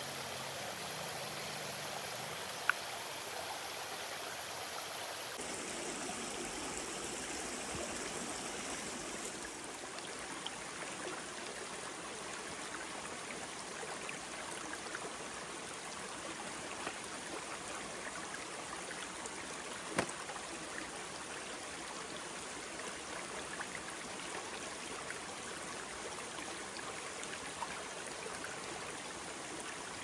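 Shallow stream running steadily over rocks, its rushing sound shifting slightly in tone about five and ten seconds in, with a few sharp clicks, the clearest near the start and about two-thirds of the way through.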